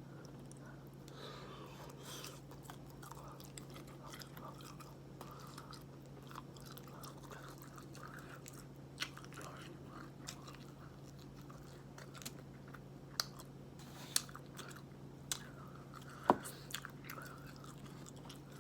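Close-miked chewing of a seafood boil of shrimp, sausage and potatoes in sauce, with wet mouth noises and scattered sharp clicks and smacks in the second half, the loudest about 16 seconds in. A steady low hum runs underneath.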